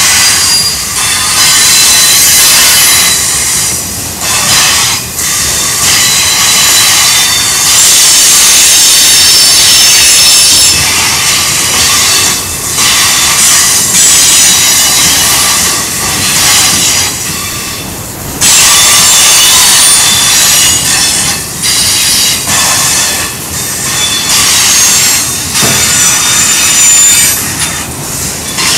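Freight train of autorack cars rolling through a curve, the steel wheels squealing against the rail in high, shifting tones over a steady rumble of wheels on track. The squeal is loud, easing briefly now and then before picking up again.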